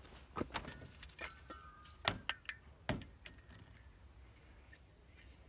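A scattering of light clicks and knocks, with a brief faint squeak about a second in, over the first three seconds; then quiet background.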